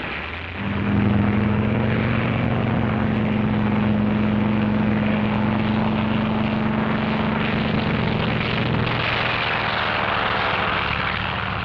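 Propeller aircraft piston engines running on a carrier flight deck: a steady drone that comes in about half a second in, with a rushing hiss growing stronger from about nine seconds in.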